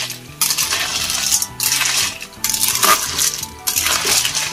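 Small snail shells rattling and clinking against a metal wok and against each other as a metal spatula stirs them, in repeated strokes about once a second.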